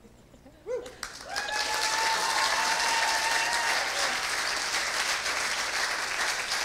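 Congregation applauding, the clapping swelling in about a second in and then holding steady. A single held cheer, a long "woo", rings out over the clapping for a couple of seconds early in the applause.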